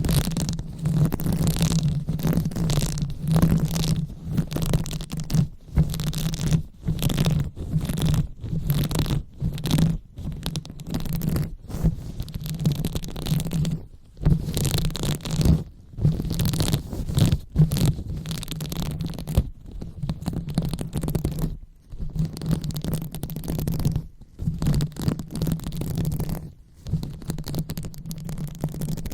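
Hands rubbing and massaging a microphone close up, ASMR 'brain massage' style: repeated scratchy rubbing strokes broken by brief gaps, over a low rumble.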